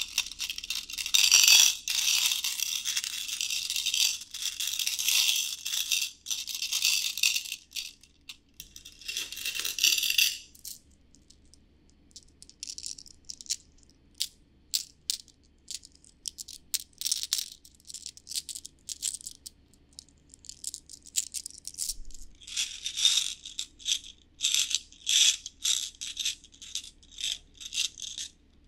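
Glass ohajiki counters clinking and rattling against each other and their clear dish as they are stirred by hand. The rattling is dense at first, thins to scattered single clicks in the middle as pieces are picked up and handled, then becomes dense again near the end as the dish is tilted. Everything is close-miked on a binaural ear microphone.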